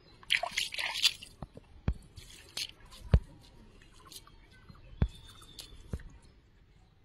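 Water splashing and squelching, then a string of sharp separate drips and plops. A short splashy burst comes right at the start and another about two and a half seconds in.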